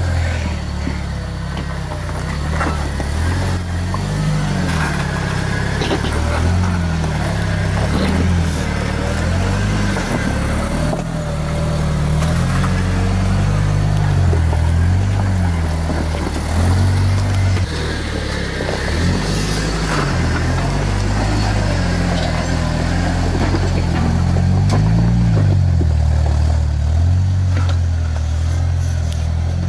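Jeep rock crawler's engine revving up and down repeatedly as it crawls up a steep rock ledge, with a few short knocks along the way.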